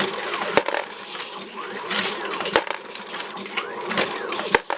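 1050 progressive reloading press driven by an AmmoBot motor, cycling about once every two seconds. Each stroke gives a sharp clack, and the motor whine rises and falls between strokes.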